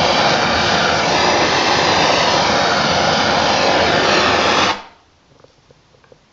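Blowtorch flame hissing steadily while it heats a copper pipe joint to soldering temperature, then cut off suddenly near the end.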